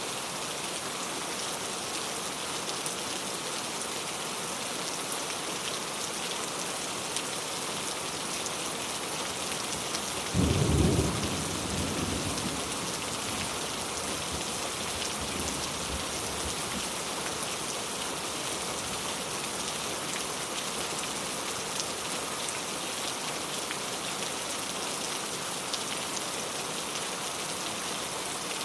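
Steady rain falling, with a single clap of thunder about ten seconds in that rumbles away over a couple of seconds.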